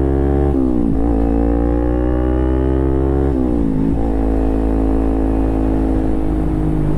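2012 Kawasaki Ninja 250R's parallel-twin engine through an aftermarket Leo Vince exhaust, accelerating hard. The pitch climbs, drops at an upshift about half a second in, climbs again, drops at a second upshift a little past three seconds, then runs nearly steady.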